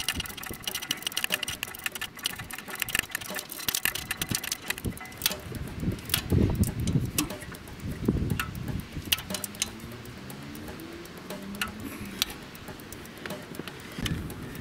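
Hand socket ratchet clicking in quick runs while a hard-to-reach bolt is turned, with metal tool clinks and a few dull knocks.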